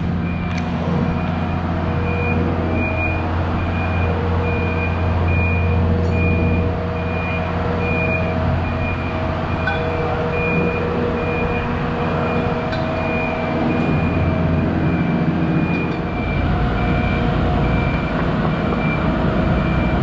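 Engine of a large mobile boat travel lift running steadily as it lowers a yacht in slings into the water, with its warning beeper sounding about twice a second. The low rumble grows heavier about sixteen seconds in.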